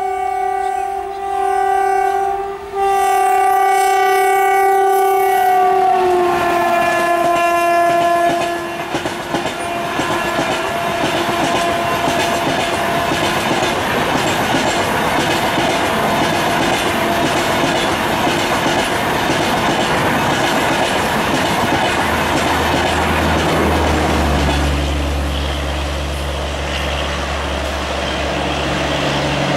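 Indian Railways locomotive horn sounding two long blasts, its pitch dropping as the locomotive passes, followed by the rumble and clickety-clack of the coaches rolling by. About 23 seconds in, a low steady hum sets in under the train noise.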